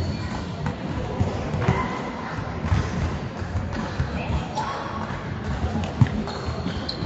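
A volleyball being played in a rally, with short sharp thumps of the ball off players' forearms and hands, the sharpest about six seconds in. Voices chatter across an echoing sports hall.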